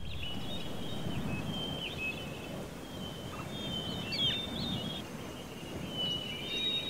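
Outdoor ambience with birds chirping: a steady low background noise with short, high chirps scattered through it, a little busier about four seconds in.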